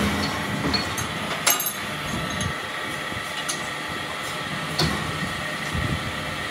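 Sharp metal clinks from setting up a trolley axle tube in a lathe's four-jaw chuck, a few single strikes over a steady machine hum.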